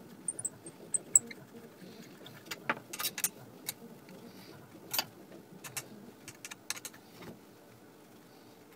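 Irregular sharp clicks and light metallic taps from a steel hex key working the screws out of a 3D-printed plastic gearbox housing, with a few faint high tinkles in the first second or so; the clicking stops about a second before the end.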